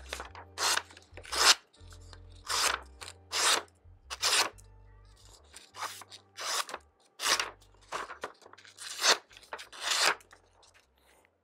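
Thin VG10 folding chef's knife slicing down through a sheet of printer paper about a dozen times, each cut a short papery hiss: a paper cut test of the freshly sharpened edge. Faint background music underneath.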